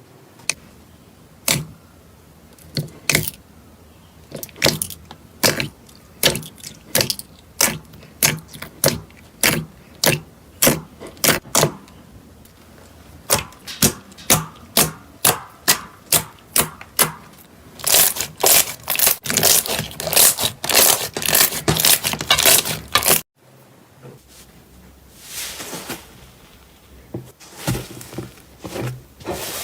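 Slime being pressed and worked by hand, giving repeated sharp crackling pops about one or two a second that speed up into a dense run. The sound cuts off suddenly about 23 seconds in, and a softer crackling follows.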